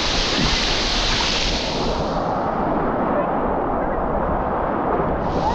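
Ocean surf and wind rushing over the microphone. About two seconds in, the sound turns muffled and dull, and it clears again just before the end.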